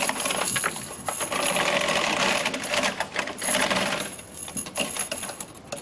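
A metal chain rattling and clinking as it is looped through a pair of door handles, with a short lull about four seconds in.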